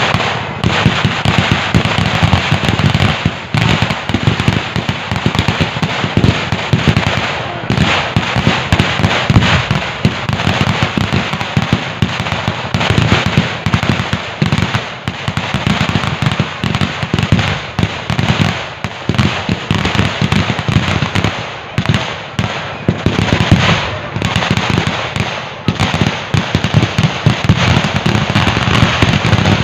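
Firecrackers going off in a dense, unbroken barrage: many sharp bangs a second run together into a loud, continuous crackling rattle.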